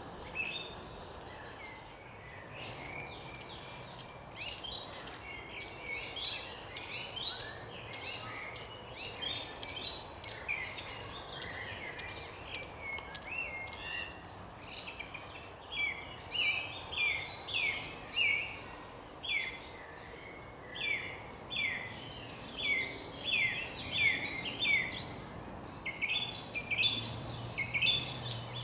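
A thrush singing: a long run of short, clear phrases, many of them repeated several times in quick succession. Underneath is a steady hum of background noise.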